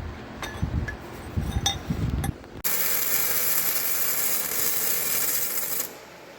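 A few low knocks and small clicks of steel being handled, then about two and a half seconds in a welder starts on the steel gusset and frame: an even, crackling hiss that runs for about three seconds and cuts off abruptly.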